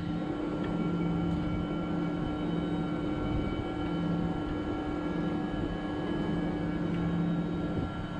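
Carrier 30GX air-cooled screw chiller running: a steady machine hum with a low drone and several fixed tones.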